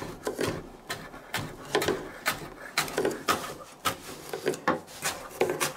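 Kitchen knife cutting radish on a cutting board: a run of sharp, uneven knocks, about three a second.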